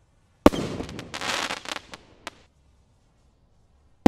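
Standard Fireworks Galactica rockets bursting. A sharp bang about half a second in is followed by about two seconds of crackling from the burst, and a second rocket bursts with a bang at the very end.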